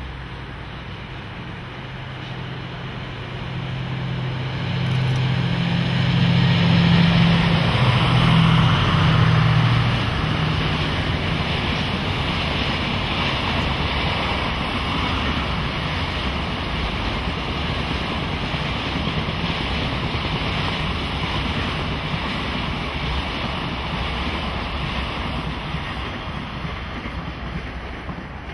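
A DF200 diesel-electric locomotive's engine drone growing as it approaches and loudest about six to ten seconds in as it passes, then the long, even rumble of container wagons rolling by on the rails, fading near the end.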